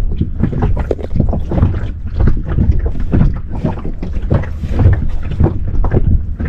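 Wind buffeting the microphone outdoors: a loud, uneven low rumble that rises and falls in gusts.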